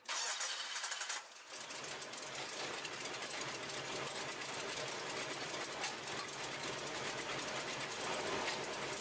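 2002 Nissan Frontier's 3.3-litre V6 running with a loud, rapid, steady knocking: the engine is blown.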